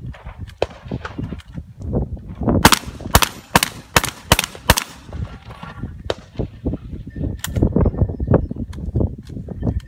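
A rapid string of about seven gunshots from a competitor's long gun, about three a second, fired at steel poppers. Fainter shots come before and after the string.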